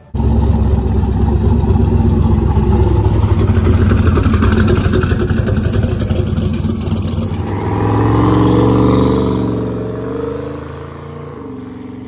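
LS V8 engine of a 1984 Chevrolet C10 pickup running as the truck pulls away on its first test drive. About eight seconds in it revs up as the truck accelerates, then the sound fades as it drives off.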